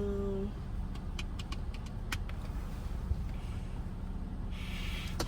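Steady low rumble of a car in motion, heard from inside the cabin, with a few light clicks between one and two seconds in.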